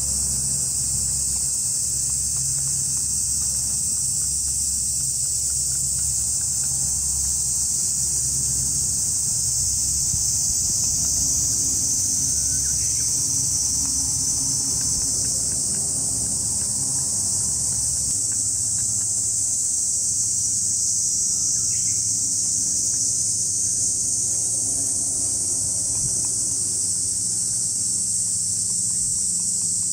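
A loud, steady chorus of cicadas, with a low steady rumble beneath it from the distant LCAC air-cushion landing craft running across the water.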